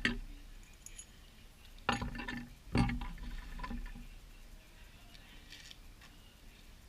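Handling noise from the Kriega US20 bag and its fittings: two sharp knocks with a short rattle about two and three seconds in, then fainter rustling that dies away.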